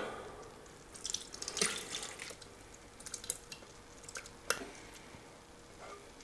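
Pan juices trickling and dripping from a tipped pan into a Thermomix TM6 mixing bowl, with light scraping and ticks and one sharper tap about four and a half seconds in.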